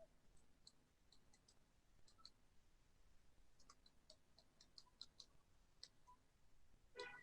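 Near silence with faint, irregular light clicks scattered throughout and a slightly stronger cluster of clicks near the end.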